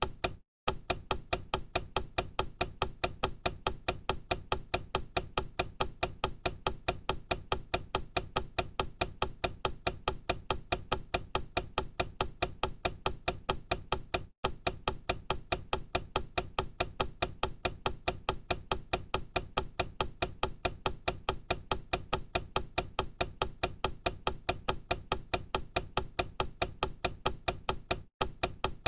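Time-bomb clock ticking: fast, even, sharp ticks that repeat without change, breaking off for an instant about half a second in, again near the middle and once more near the end.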